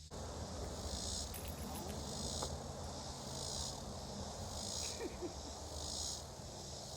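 Insects buzzing in regular pulses, a high shrill swell about once a second, over a steady low rumble.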